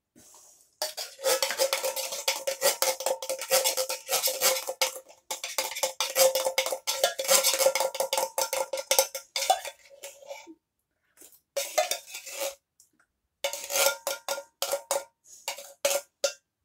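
A metal spoon rapidly scraping the inside of a tin can to get the last of the tomato soup out, and the tin rings with each stroke. The scraping runs continuously for about nine seconds, then comes in three shorter bursts.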